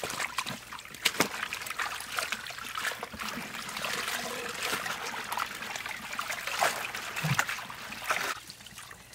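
Water splashing and trickling as leafy greens and a napa cabbage are swished through a large aluminium basin of water and lifted out, water streaming off the leaves back into the basin.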